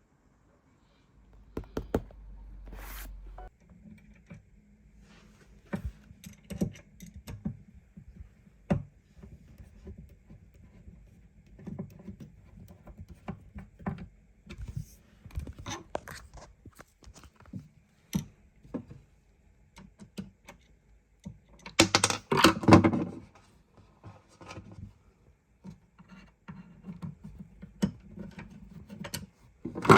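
Scattered knocks, taps and scrapes of flat-pack furniture parts and hardware being handled during assembly, with a louder burst of clattering about two-thirds of the way through and another at the very end.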